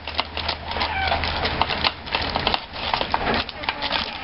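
Parchment paper crackling and rustling under hands pressing pizza dough out on a baking tray, with a chicken clucking in the background a couple of times.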